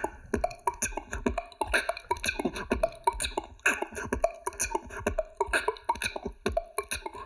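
Solo beatboxing: a fast, dense groove of vocal drum sounds, sharp strikes several times a second mixed with short pitched tones.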